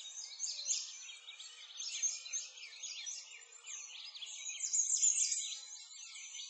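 A chorus of many small birds chirping and twittering together, with quick high chirps overlapping without a break.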